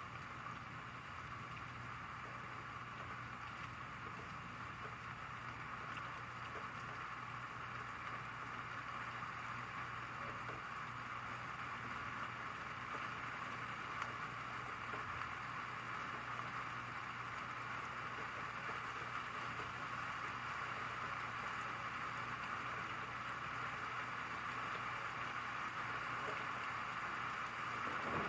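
Steady hiss of rain falling, slowly growing louder, with a faint low hum underneath.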